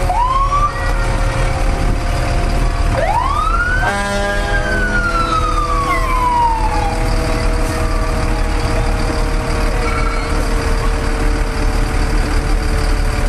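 Fire engine siren passing: a brief upward chirp, then a wail that rises about three seconds in and slowly falls away over the next three seconds, with a short horn blast as it peaks. The trucks' diesel engines run steadily underneath.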